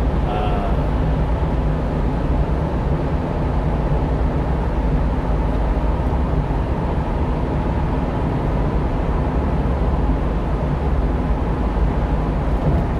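Steady engine and tyre-on-road noise of a one-ton truck cruising at highway speed inside a road tunnel, heard from in the cab, mostly a low rumble with no distinct events.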